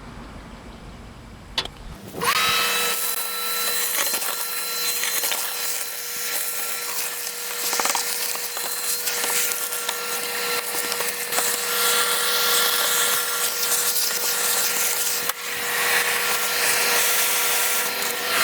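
Vacuum cleaner switched on about two seconds in, its motor whine rising to speed and then running steadily, used to suck pine straw and leaves out of the heat pump's outdoor unit.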